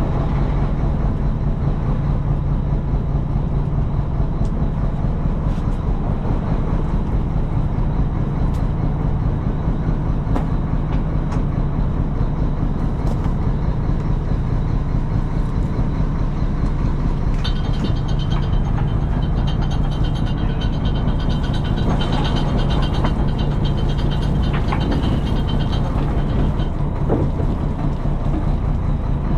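A fishing boat's engine running steadily with a low, even hum. A faint high-pitched whine joins in for several seconds past the middle.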